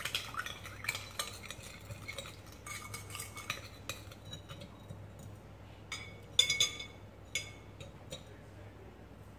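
A spoon stirring and clinking against a glass mixing bowl, dissolving sugar in a lime juice and fish sauce dressing. Irregular scraping clinks with a short glassy ring, the loudest few about six to seven seconds in, thinning out near the end.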